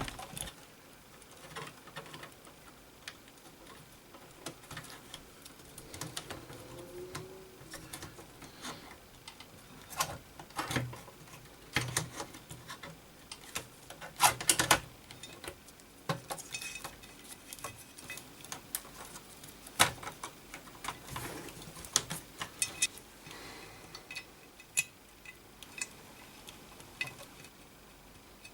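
Irregular clicks, taps and knocks of hands handling the plastic and metal parts of a Macintosh Classic while putting it back together, with a few louder knocks among the light ticks.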